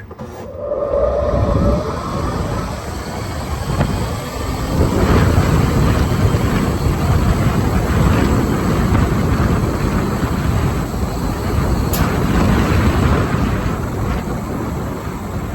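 Loud wind buffeting on the phone's microphone while riding in an open electric golf cart at speed, an uneven low rumble that surges and eases.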